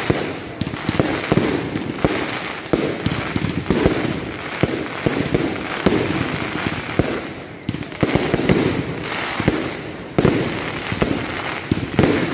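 Aerial fireworks bursting overhead: an uneven, rapid string of sharp bangs with dense crackling between them.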